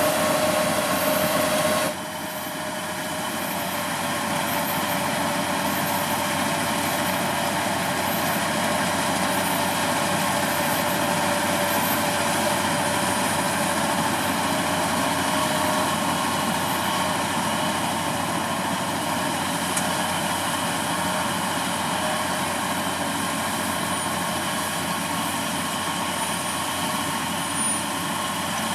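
Kubota DCX 100 rice combine harvester's diesel engine running steadily. About two seconds in, the sound drops suddenly, then climbs back over the next two seconds.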